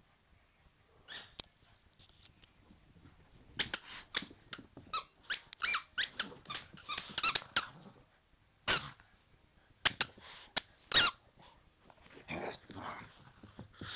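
Dog chewing a squeaky ball: a quick run of short, high squeaks a few seconds in, then a handful of louder single squeaks. Fainter scuffling squeaks come near the end.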